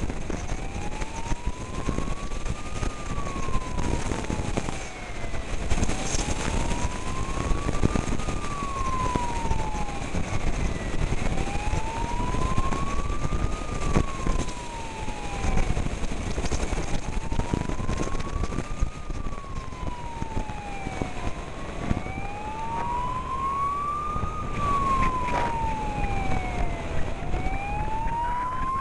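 Fire service emergency siren in a slow wail, rising and falling about every five and a half seconds, over steady wind and road noise from a moving vehicle. A second siren sounds faintly out of step with it and grows louder near the end.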